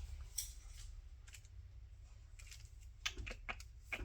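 Paper being handled: a handful of short, crisp rustles and clicks, several in quick succession about three seconds in, over a faint low hum.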